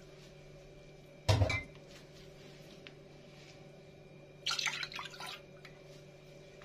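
Milk poured from a glass cup into a nonstick pan: a knock of the glass about a second in, then a short splashing pour near the middle, over a faint steady hum.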